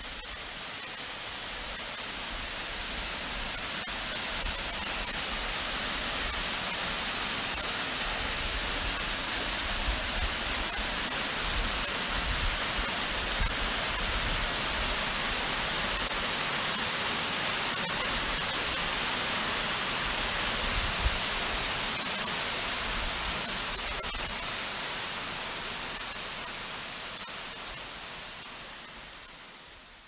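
Steady rushing hiss of falling water, with no distinct events, fading in over the first few seconds and out near the end.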